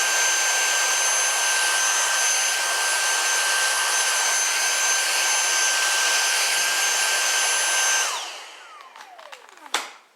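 Vacuum cleaner running steadily with a high whine and airy hiss, switched off about eight seconds in, its motor winding down with a falling pitch. A sharp click near the end.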